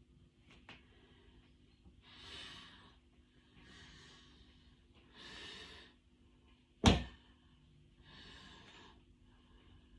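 Breathing during a set of calf raises: soft breaths in and out roughly every one to one and a half seconds. One sharp knock about seven seconds in, the loudest sound.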